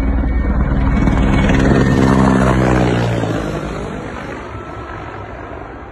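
Helicopter flying low overhead: a loud rotor and engine drone that is loudest about two seconds in, drops in pitch as it passes, and then fades away.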